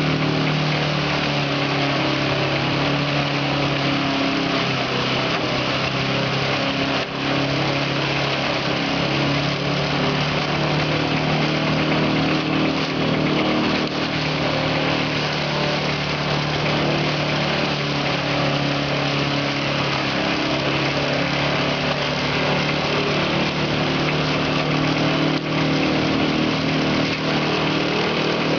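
Engine-driven multi-purpose crop shredder running steadily under load as green plant stalks are fed into it and chopped.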